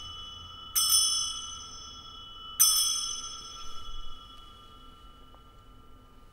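Altar bell rung at the elevation of the consecrated host. It is struck twice, each strike a clear, bright ring that slowly dies away, and the ringing fades out about two-thirds of the way through.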